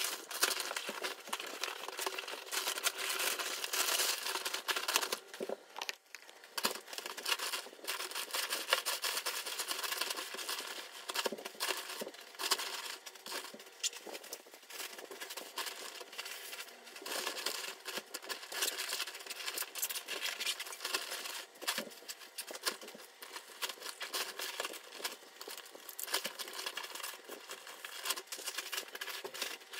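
Crinkling and rustling of stuff sacks and gear being packed into a Hyperlite Mountain Gear backpack, played at eight times speed, so it comes as a fast, dense chatter of crinkles and small clicks.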